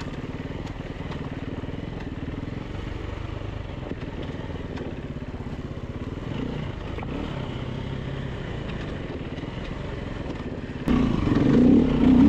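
Four-stroke single-cylinder engine of a 2014 Husaberg FE350 enduro motorbike running as it is ridden, with a steady note that gets suddenly louder near the end.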